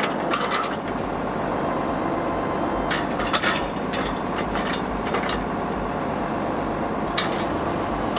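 Tractor engine running steadily while the hydraulic cylinder raises the White planter's freshly repaired row-marker arm to upright and starts lowering it again, a test of the repair. A few sharp metal knocks come through, about three seconds in and again near the end.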